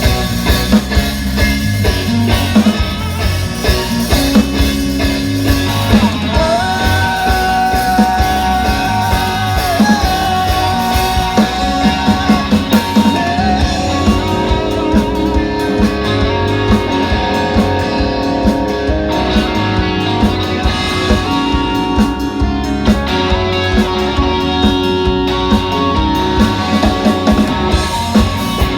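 Rock band music with guitar and drum kit playing. A long held melody line bends up about six seconds in and is held for several seconds over the band.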